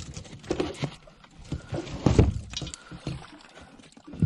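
Irregular knocks and light clatter as hands work a lure's treble hook free from a landing net on a boat deck, with one louder thump about two seconds in.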